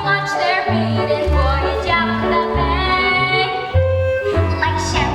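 Musical-theatre song with instrumental accompaniment over a bass line that moves in held notes, with a singing voice in it.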